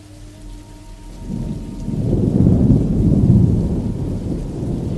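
Thunder rumbling over steady rain, building about a second in into a long, deep, rolling peal.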